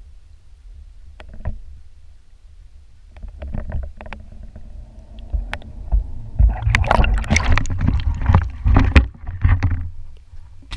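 Muffled underwater rumble heard through a GoPro's waterproof housing, with a few small clicks. About three seconds in, water splashing starts, growing loud and dense after about six seconds as the camera breaks the surface and water sloshes over the housing.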